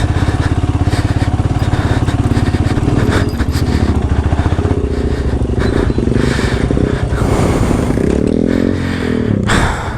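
Royal Enfield Himalayan's single-cylinder engine running at low revs, its pitch rising and falling a few times, with scattered knocks and scrapes.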